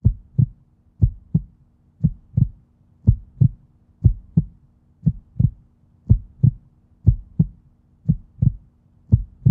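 Heartbeat sound effect: paired low thumps, a lub-dub repeating steadily about once a second, over a faint steady low hum.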